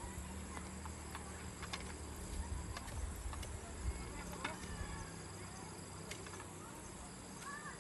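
Insects buzzing steadily at a high pitch over a low rumble, with scattered light clicks and a couple of short bird chirps near the end.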